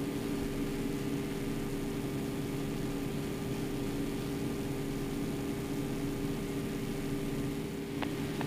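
Yak-52's nine-cylinder radial engine running steadily in cruise, heard from inside the cockpit as an even drone with a hiss of airflow. A single short click sounds near the end.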